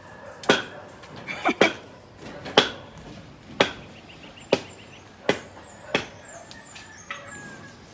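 Hammer blows on a building site: about nine sharp, separate strikes at an uneven pace of roughly one a second.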